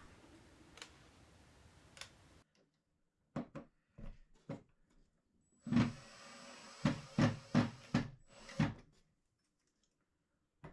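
A few wooden knocks as a bracket is held up to a plywood module frame, then a cordless drill/driver running for about three seconds with a string of sharp knocks while the bracket is screwed on.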